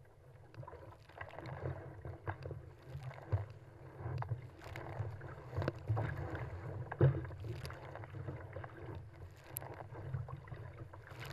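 Choppy sea water splashing and slapping irregularly against a paddled kayak's hull, over a steady low rumble, with one louder splash about seven seconds in.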